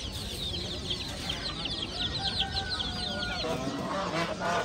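A crowded cage of baby chicks peeping: a dense run of quick, high, falling cheeps that stops about three and a half seconds in. Lower clucking from adult chickens follows near the end.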